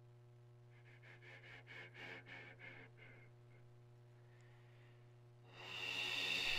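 Didgeridoo playing softly: a steady low drone with quick rhythmic overtone pulses about a second in, then a louder, shrill high overtone from about five and a half seconds in.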